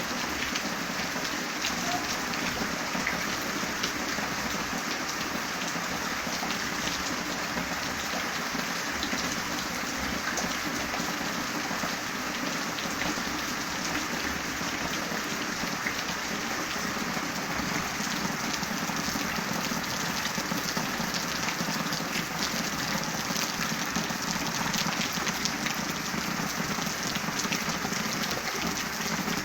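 Steady rain falling, a dense even hiss with many fine drop impacts.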